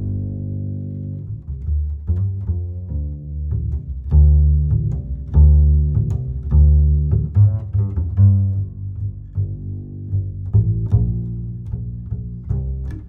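Background music carried by low plucked and bowed string notes, deep bass tones changing pitch every half second or so.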